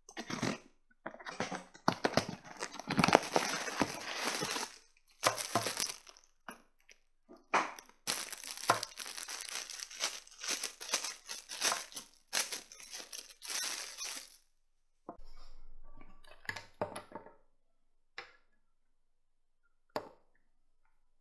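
Thin plastic packaging bag crinkling and rustling in repeated bursts as a plush toy is unwrapped from it; after about fourteen seconds the crinkling stops, leaving a few isolated taps.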